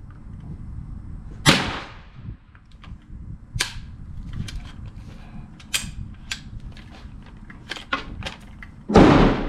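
Gunshots from an AR-15 pistol firing .22 LR through a CMMG conversion kit: two loud single shots, one about a second and a half in and a louder one near the end. Between them come fainter sharp cracks and light clicks.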